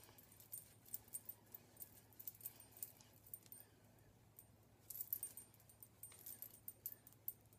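Faint scattered light ticks and rustles in small clusters, from a hand wiping the eye area with a makeup remover cloth.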